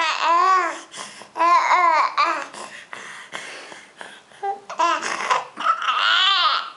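Young baby cooing and babbling, a string of high, rising-and-falling vocal sounds in short bursts with brief pauses between them.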